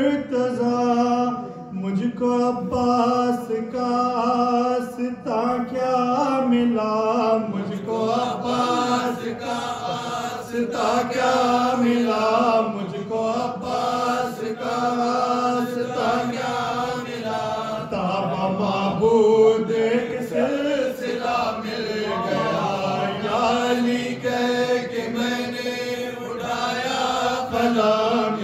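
Men's voices chanting an Urdu devotional manqabat without instruments: a melody that bends and turns over a steady, held low note that runs throughout.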